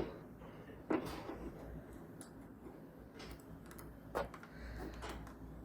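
Faint scattered clicks and small knocks of cutters working at a thick battery cable, the clearest about a second in and again near four seconds.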